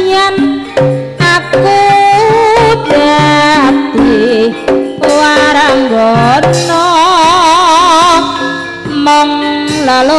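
Javanese tayub music: a female singer sings a wavering, ornamented melody through a microphone over gamelan accompaniment, with repeated hand-drum (kendang) strokes.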